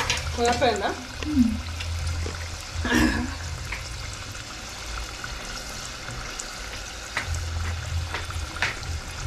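Vegetable spring rolls deep-frying in hot oil in an aluminium pot: a steady sizzle with small scattered crackles. A voice is heard briefly near the start and about three seconds in.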